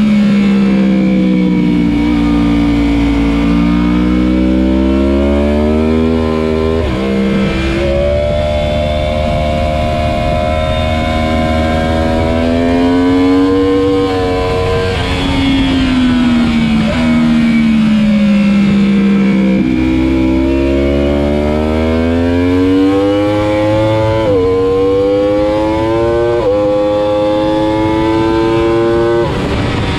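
Sport motorcycle engine heard onboard at track speed, its revs climbing under acceleration and falling off for corners, with sharp drops in pitch at quick upshifts, the last ones coming close together near the end. Wind rush runs underneath.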